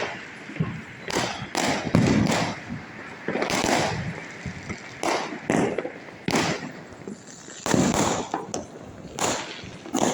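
Diwali fireworks and firecrackers going off: an irregular string of sharp bangs, around a dozen or more, each trailing off in an echo.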